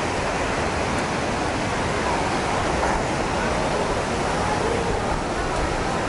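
Steady rushing noise of wind on the camera microphone, with an uneven low rumble.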